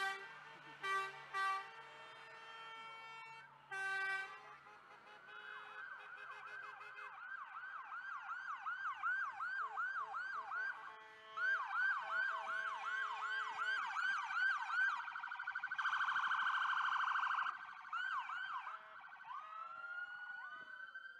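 A few short vehicle horn blasts in the first four seconds, then police car sirens sounding a fast yelp of quick rising-and-falling sweeps. A harsher buzzing tone cuts in for a couple of seconds, and slower wailing sweeps come near the end.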